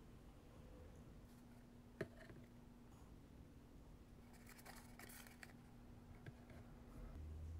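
Near silence with a faint steady hum, broken by a sharp click about two seconds in and a short cluster of light clicks around five seconds: blocks being set down against one another as a wall is stacked. A brief low rumble comes near the end.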